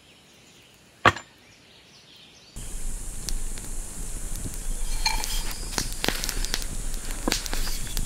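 A single sharp knock about a second in; then, after a sudden change of background, a steady hiss with scattered small clicks.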